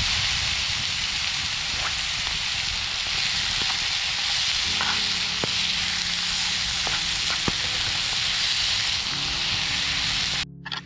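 Mushrooms and onion frying in a pan: a steady sizzle with a few small pops, cutting off abruptly just before the end.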